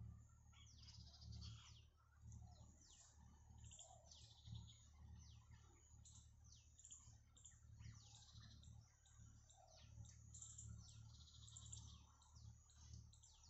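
Faint outdoor birdsong: several small birds chirping and trilling in short repeated phrases, over a low rumble.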